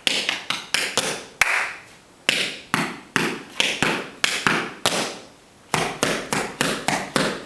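Tap shoes striking a hard floor in quick rhythmic patterns of sharp, ringing clicks, a tap dance step danced in sets with a break. The taps pause briefly about two seconds in and for under a second about five seconds in before the next run.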